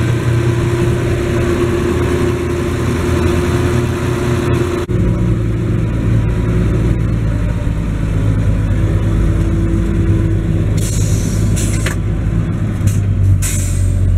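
Schlüter Profi Trac 3500 TVL's 320 hp turbocharged, intercooled MAN diesel engine running steadily under load as the tractor pulls a disc harrow, heard from inside the cab. The sound changes abruptly about five seconds in, and a few short hisses come near the end.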